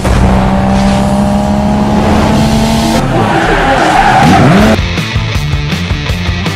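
Intro sound effects of a car: a steady engine tone for about three seconds, then a tyre screech with sweeping pitch as the car drifts, followed by a short piece of music with a beat starting about two-thirds of the way through.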